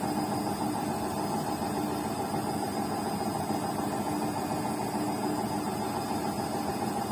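BEKO washing machine in its spin cycle, the drum turning at a steady high speed with a constant hum and whine and a faint pulse about twice a second.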